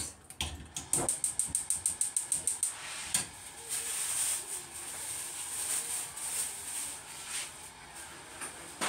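A quick run of sharp clicks, about ten a second, as the cooktop under an empty stainless steel wok is switched on, then a steady hiss as the wok heats with a few water drops in it.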